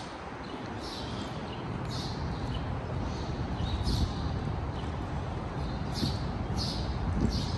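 Outdoor street ambience: a steady low rumble that swells twice, with short high-pitched sounds about once a second over it.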